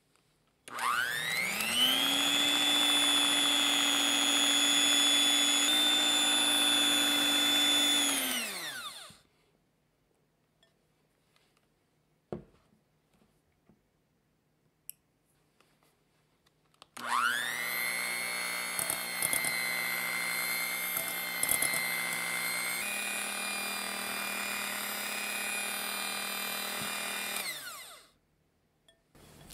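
Electric hand mixer whipping egg whites and sugar into a stiff meringue in a glass bowl. The motor spins up with a rising whine about a second in, runs steadily for about eight seconds and winds down; after a quiet pause with a single tap, it starts again, runs for about eleven seconds and winds down near the end.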